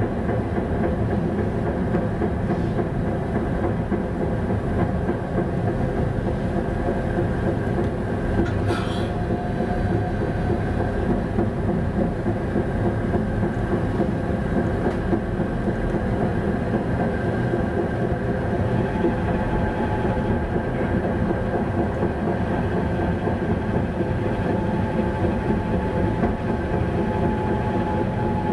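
Tatra T6A5 tram running along street track, heard from inside: a steady rumble of wheels on rails with a faint steady whine, and one short sharp click about nine seconds in.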